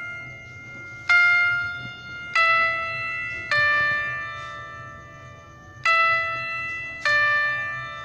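Background music of slow, bell-like chime notes: five single notes struck about a second apart at different pitches, each ringing and fading before the next.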